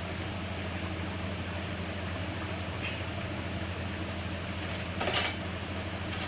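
Steady low hum and hiss of pots boiling hard on a stove, with a short clatter about five seconds in.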